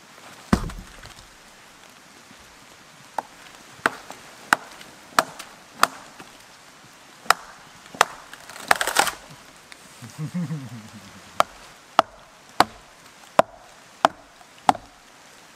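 Axe chopping into a split oak plank: sharp single strikes about two-thirds of a second apart, in two runs, with a brief rasp of wood between them. A heavy wooden thud, the plank dropped onto the log, comes about half a second in.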